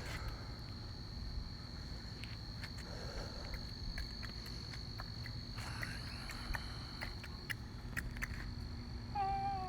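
Crickets trilling in one steady, unbroken high note over a low background rumble, with a brief wavering voice-like call near the end.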